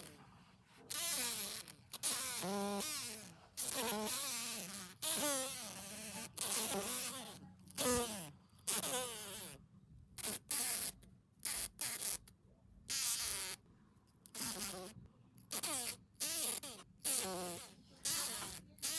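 A green fly held in cupped hands, buzzing in repeated bursts that start and stop, its pitch wavering up and down. The bursts grow shorter and come more often in the second half.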